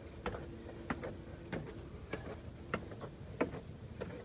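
A hiker walking at a steady pace, each step a sharp tap, about one every two-thirds of a second.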